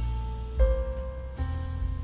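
Soft instrumental background music: sustained notes that change about every second, over a deep bass.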